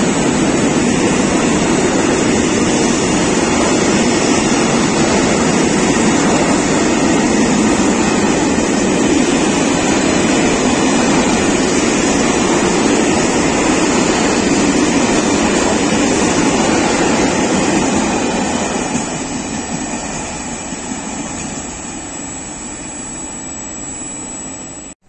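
Freight train of covered hopper wagons rolling past on the rails, a loud steady rumble that fades away from about eighteen seconds in as the last wagons draw off.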